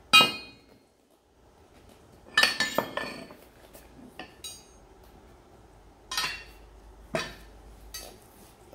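Steel Halligan bar and axe head knocking against each other as the two irons are put together: a loud ringing clank right at the start, a quick run of clinks about two and a half seconds in, then single knocks near six, seven and eight seconds.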